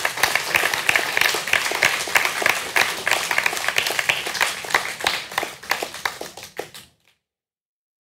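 Congregation applauding, the clapping dense at first, then thinning to a few scattered claps and stopping about seven seconds in.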